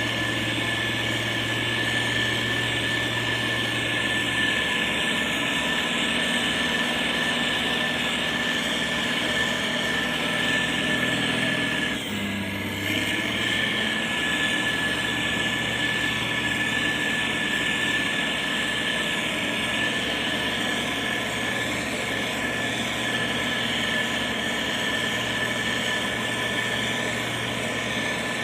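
Diesel engine of heavy road-construction machinery running steadily, with a steady high whine above the engine hum. About twelve seconds in the sound briefly dips and shifts, then settles back.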